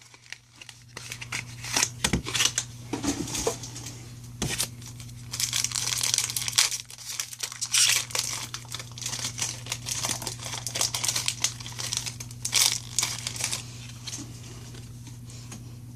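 A Pokémon card booster pack's foil wrapper being torn open and crinkled by hand, in irregular crackling spurts that are busiest in the middle and thin out near the end.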